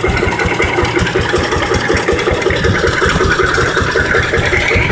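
Torotrac S-T21 mini tractor's engine running at steady revs with the sickle-bar mower engaged, its reciprocating knives giving a fast mechanical rattle. A whine rises in pitch over the last couple of seconds.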